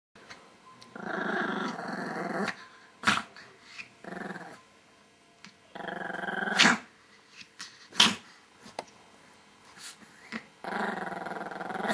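Two small dogs growling at each other in a playful squabble over a toy, in bouts of a second or so, with a few short sharp yaps in between.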